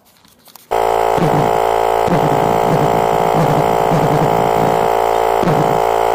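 Homemade valveless pulsejet running: a loud, steady buzzing drone that starts abruptly about a second in.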